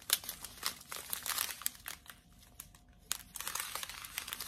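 Small clear plastic bags of diamond-painting drills crinkling and rustling as they are handled, in quick crackles with a quieter moment about halfway through.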